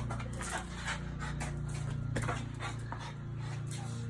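French bulldog puppy panting in quick, uneven breaths, over a steady low hum.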